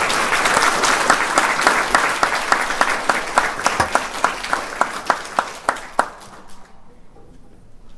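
Audience applauding: a dense round of clapping that thins to scattered separate claps and dies away about six seconds in.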